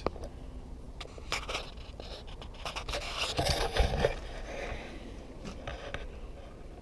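Scraping with scattered sharp clicks, loudest about three to four seconds in.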